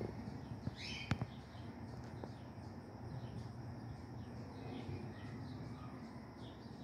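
Outdoor ambience: a steady high insect drone with faint repeated chirps, a short rising bird chirp and two sharp clicks about a second in.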